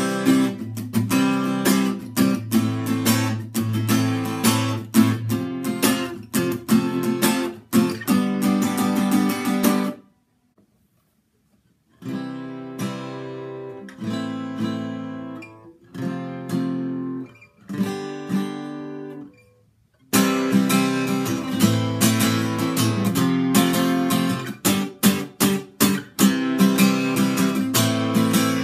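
Steel-string acoustic guitar in E standard tuning with new D'Addario EXP19 strings, strummed in chords. The playing stops for about two seconds near the middle, comes back as slower, separate strummed chords, then switches abruptly to fast, busy strumming about two-thirds of the way through.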